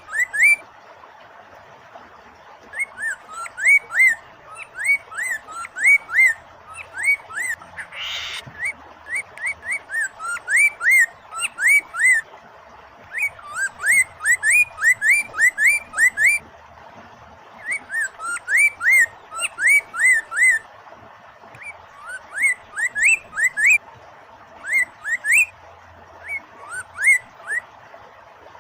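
Poksay mandarin singing in bursts of quick, repeated whistled notes that sweep up and down, each burst a few seconds long with short pauses between, and one harsher note about 8 seconds in. A steady wash of running water sits under the song.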